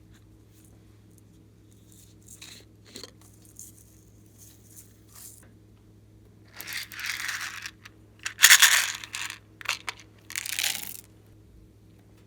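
Slime and mixing ingredients handled by hand, giving a few soft crackles and then several louder crinkly, rustling bursts, the loudest about two thirds of the way through.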